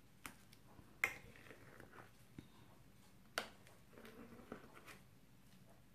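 Thick slime being stirred and folded with a utensil in a glass dish, giving quiet sticky pops and clicks. Two sharper pops come about a second in and about halfway through, with a run of softer squelches after the second.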